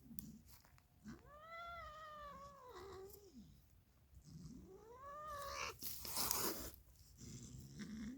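Domestic cat giving two long, drawn-out meows, each rising then falling in pitch, followed by a short harsh burst of noise that is the loudest sound.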